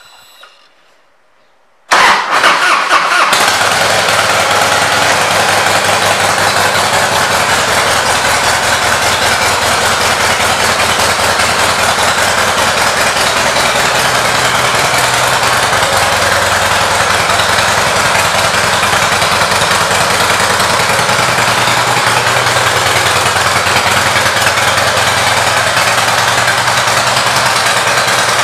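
2002 Harley-Davidson Heritage Softail Classic's Twin Cam 88B V-twin started on the electric starter about two seconds in, catching after a second of cranking, then idling steadily.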